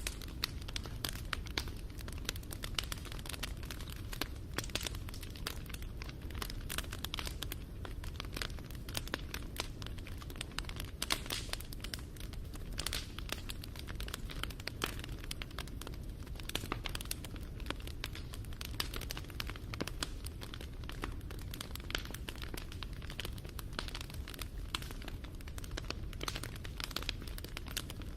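Wood fire crackling: a dense, irregular stream of small sharp pops and snaps over a steady low rumble.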